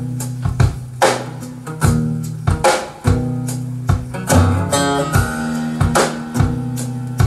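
Recorded music played through an Audio Note hi-fi system's loudspeakers: an instrumental passage of plucked guitar over a sustained bass line, with drum hits on a steady beat.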